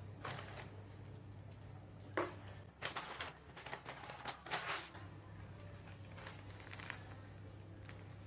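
Paper takeaway bag rustling and crinkling in short, sharp bursts as it is opened and rummaged through, with a plastic packet crinkling as it is pulled out; the busiest rustling comes about two to five seconds in, over a low steady hum.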